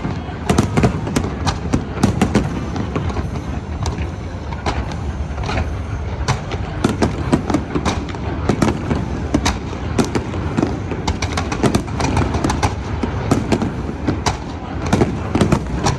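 Aerial fireworks going off in rapid succession: many sharp bangs and crackles, several a second, over a continuous low rumble.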